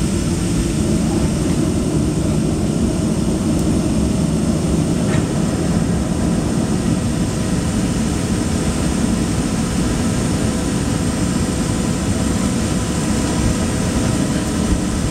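Steady cabin rumble of a Boeing 737-800 rolling along the runway after landing: its CFM56 jet engines and the rolling airframe make a constant, heavy low drone with faint steady tones above it.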